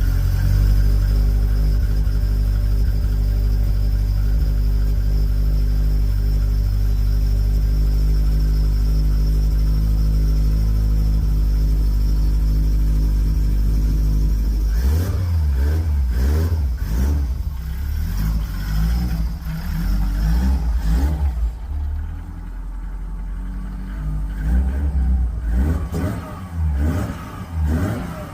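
Subaru WRX STI's turbocharged flat-four engine idling steadily, then, about halfway through, revved in a series of throttle blips, the engine speed rising and falling again and again.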